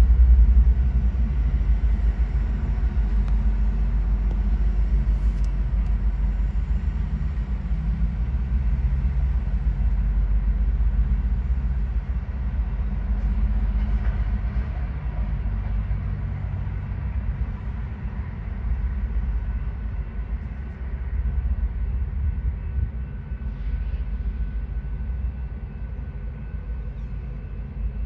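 Loaded coal train rolling past: a steady low rumble of hopper cars on the rails, loudest at the start as the EMD SD70ACe locomotives go by and easing slowly after, with faint steady high tones in the later part.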